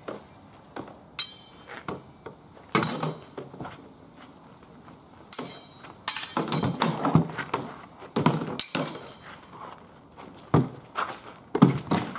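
Sword-and-shield sparring: swords striking wooden round shields with metal bosses and shields clashing, sharp knocks mixed with metallic clinks. The strikes come in several quick flurries, one ringing hit about a second in and the busiest exchanges from about halfway to the end.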